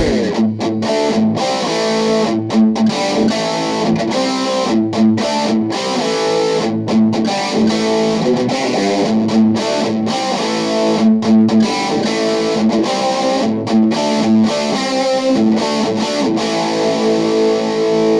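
Electric guitar played through a Cort MX15 practice combo amp: a busy passage of changing notes and chords that settles into a held, ringing chord near the end.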